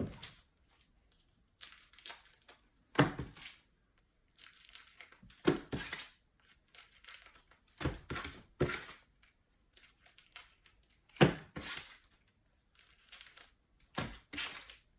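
Trading card box packaging being opened: irregular tearing and crinkling of cardboard and plastic wrapping, with several sharp snaps along the way.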